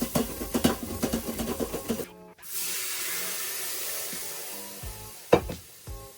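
Cooking sounds under background music: about two seconds of quick scraping and clattering on a wooden surface, then a sudden steady hiss that slowly fades, and a single sharp knock near the end.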